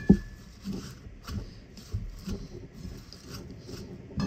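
Silicone spatula stirring and tossing sugar-coated lemon peels in a pot: soft, irregular rustling and scraping strokes, with one sharp knock against the pot just after the start.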